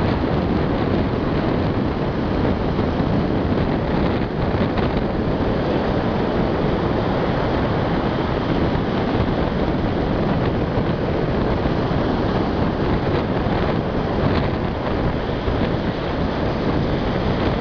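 Shallow ocean surf washing up the sand and rushing back in a steady, loud wash, with wind rumbling on the microphone.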